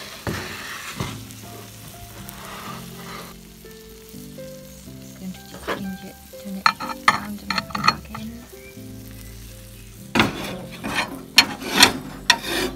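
Curry-marinated chicken thighs sizzling in their juices in a hot cast-iron sizzler pan. Sharp crackles and clicks come in clusters from about five seconds in and again during the last few seconds.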